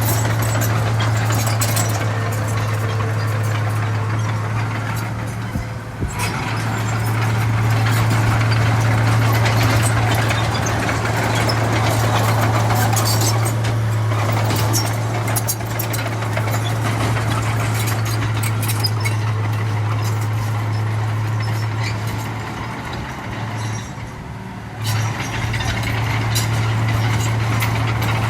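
Heavy earthmoving machine's diesel engine running steadily under load: a constant low drone with a noisy rush over it, easing off briefly twice.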